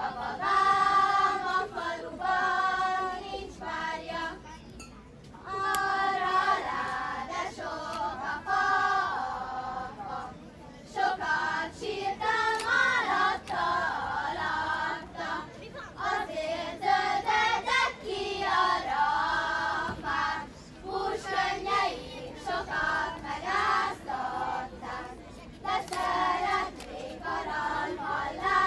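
A group of children singing together, in phrases of a few seconds with short breaks between them.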